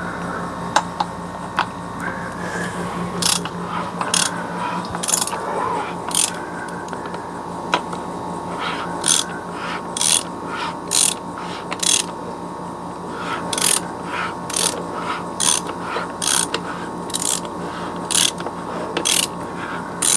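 Hand ratchet wrench clicking in repeated short strokes, about one to two a second with brief pauses, as bolts on a Corvair differential are tightened.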